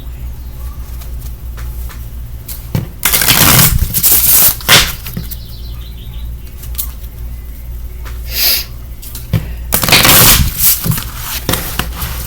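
Oracle card deck being shuffled by hand: two stretches of rapid rustling and flicking cards, each a second or two long, with scattered single card snaps between them.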